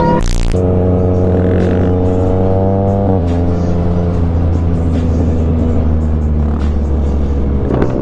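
Motorcycle engine pulling under acceleration, its pitch climbing and then dropping sharply about three seconds in at an upshift, then running on steadily. There is a short loud burst right at the start, with music underneath.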